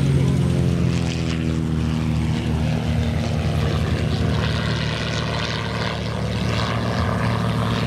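Suzuki car engine of a Beneš-Mráz Be.60 Bestiola replica running at low power with its propeller turning as the light plane taxis on grass. The engine note slides down over the first couple of seconds, dips again in the second half and climbs back near the end.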